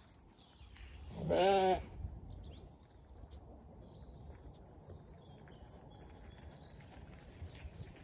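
A Zwartbles sheep bleats once: a loud, wavering call of about half a second, a little over a second in.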